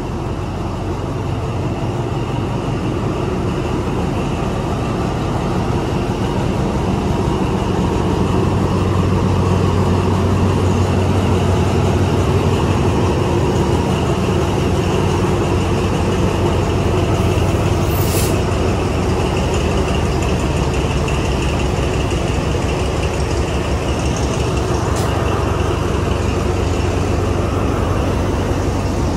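Diesel-electric locomotive idling at the head of a standing passenger train: a steady engine hum that grows louder about eight seconds in as it is approached. A brief high hiss comes about two-thirds of the way in.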